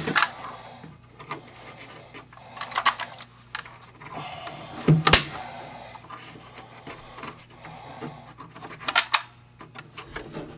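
Hand staple gun driving staples into the wooden radio cabinet to fasten the antenna wire: a few sharp snaps spaced a few seconds apart, the loudest about halfway through, with handling clicks between.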